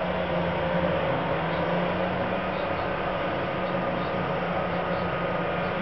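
Diesel engines of seismic vibroseis trucks running steadily: a constant drone with a low, even hum.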